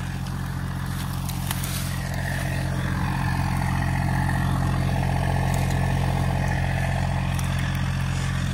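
Massey Ferguson GC1710 compact tractor's three-cylinder diesel engine running steadily, with a higher whine that drops in pitch about three seconds in and then holds.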